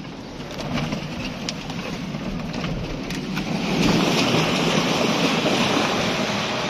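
Shallow river water running over stones: a steady hiss that comes in louder about four seconds in. Before that, quieter noise with a few faint clicks.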